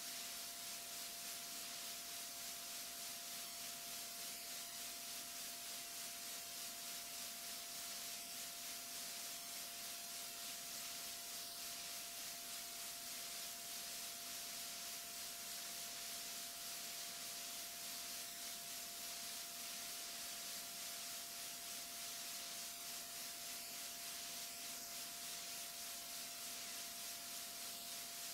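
Steady hiss of a hall's room tone, with a constant faint mid-pitched tone running under it and nothing else changing.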